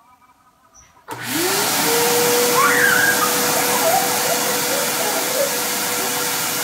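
Small canister wet/dry shop vacuum switched on about a second in: a loud rush of air, with the motor's whine climbing quickly to speed and then running steadily.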